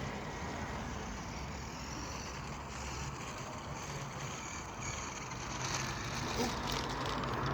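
Steady road traffic noise, with a car coming closer and getting louder near the end.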